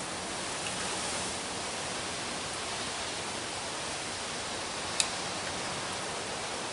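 Steady hiss of background noise, with one sharp click about five seconds in.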